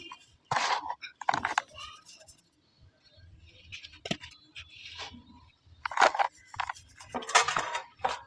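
Dry pure cement balls being crushed and crumbled: about six short crunching, crackling bursts, the longest and loudest near the end.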